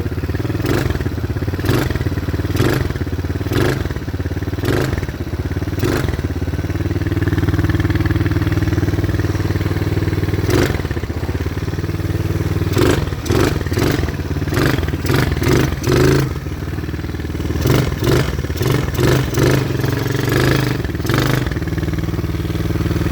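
A 110cc quad's small single-cylinder four-stroke engine running steadily, with a series of sharp clattering knocks laid over it: about one a second early on, then in quicker clusters later.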